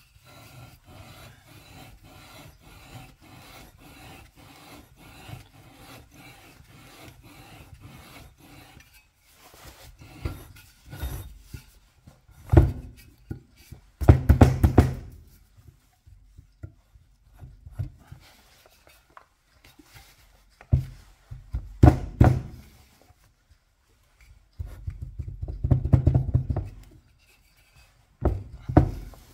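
IMZ Ural M67 crankshaft's steel taper being lapped into the flywheel's taper with oil and valve-grinding compound, twisted back and forth by hand: a gritty rasping of short strokes, faint at first, with several louder spells in the second half.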